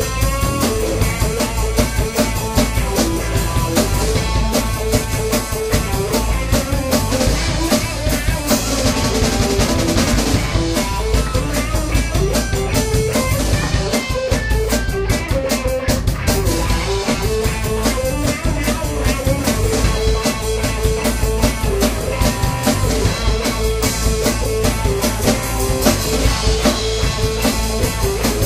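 Rock music played by a band, with a drum kit keeping a steady beat under guitar.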